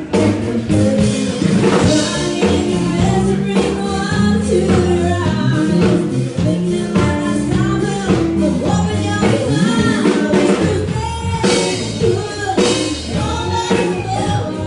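A band playing a song with a singer over a drum kit and a steady bass line.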